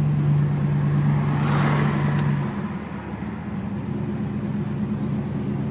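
A car driving slowly, heard from inside the cabin: a steady engine hum that falls away about two and a half seconds in, with a short hiss swelling up just before.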